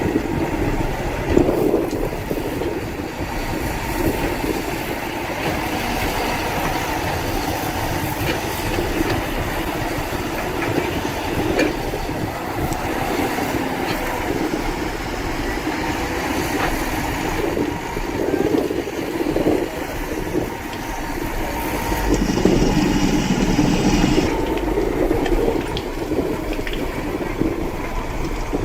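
Heavy diesel earthmoving machinery running steadily, with a louder, fuller burst about three-quarters of the way through.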